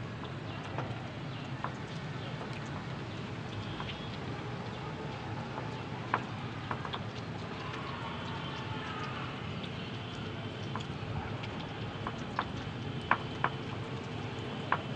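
Pakora batter frying in hot oil in a karahi over a wood fire: a steady sizzle, with a few sharp clicks scattered through it, the loudest late on.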